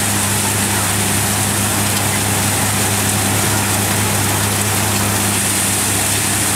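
Valasumani multicrop thresher running steadily while threshing: a constant low drone under a loud, even rushing noise.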